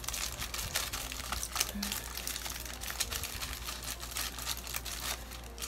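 Aluminium foil crinkling as hands fold and press it tight around a food parcel: a dense, irregular run of small crackles.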